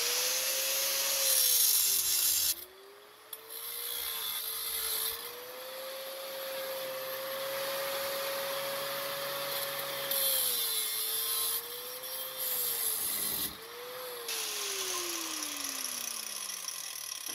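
Angle grinder with a flap disc grinding a wooden sword grip. The motor's whine dips each time the disc bites into the wood and rises again as it frees, over a hiss of abrasion. Near the end the grinder is switched off and its whine falls away as it spins down.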